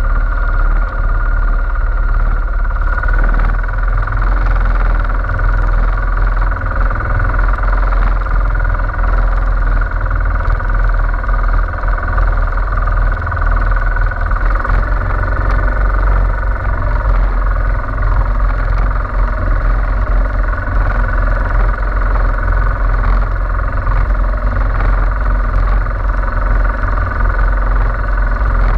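Engine of a motorized outrigger fishing boat (bangka) running steadily underway, loud and unchanging.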